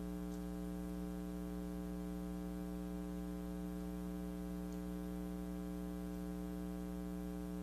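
Steady electrical mains hum, a low buzzing drone with a ladder of even overtones and no other sound.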